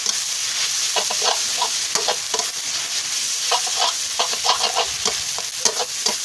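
Pad thai noodles sizzling in a wok while a metal spatula stirs and tosses them, scraping and clinking against the pan in quick repeated strokes over a steady frying hiss.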